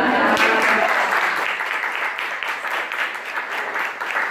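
Audience applauding: many people clapping together, rising just after the start and then holding steady.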